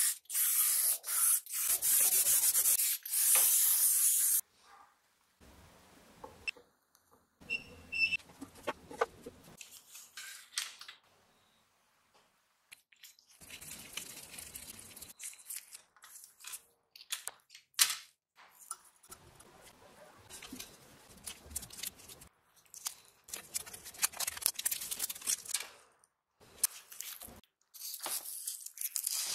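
A paint spray gun hissing in short bursts for about the first four seconds as it coats a plastic part. After a quiet stretch, small parts are handled on a workbench: intermittent light rubbing and scraping, with one sharp click a little past halfway.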